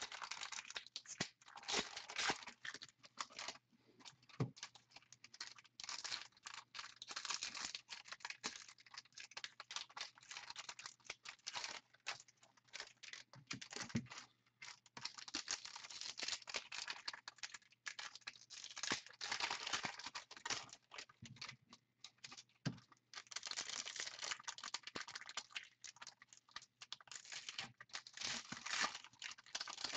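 Plastic wrapping on a box of trading-card packs being torn open and crinkled by hand, in uneven bursts of crackling with short pauses between them.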